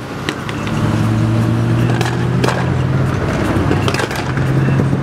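Small car's engine and exhaust droning at steady revs, with a few sharp clicks or pops.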